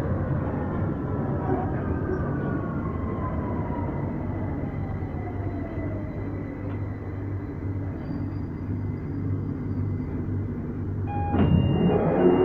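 2009 Stock Victoria line train's traction motors whining down in pitch as it brakes into a station, over a steady rumble. Near the end comes a loud burst and a repeating beep as the doors open.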